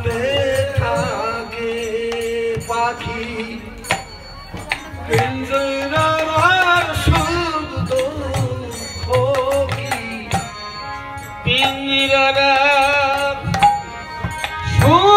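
Bengali devotional folk song (Matua Hari sangit): a male voice sings with vibrato over harmonium and hand-beaten barrel drums (dhol) keeping a steady beat.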